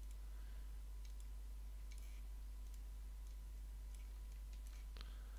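Faint, scattered clicks of a computer mouse, about a dozen at irregular intervals, over a steady low electrical hum.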